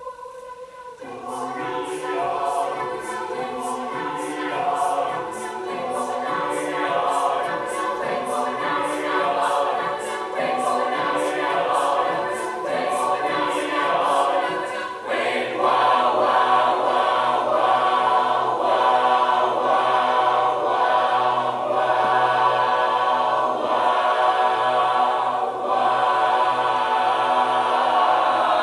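A choir singing in several parts. A single held note opens, the full choir comes in about a second later, and the singing grows fuller and louder about halfway through.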